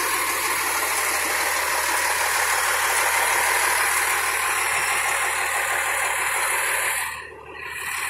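Fire engine's diesel engine idling, a steady running hiss and rumble that briefly drops away about seven seconds in.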